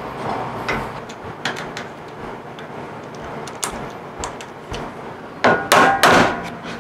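The aluminium gantry of a FoxAlien CL-4x4 CNC machine being knocked into its tight Y-axis rails through a block of wood: a quick run of loud knocks with a short metallic ring about five and a half seconds in, after lighter clicks and clanks of the parts being handled.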